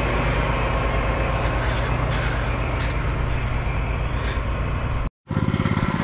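Ready-mix concrete truck's diesel engine running steadily close by while the last load is tailgated out of the drum. Near the end the sound drops out at a cut, and a different engine with a quick, even beat comes in.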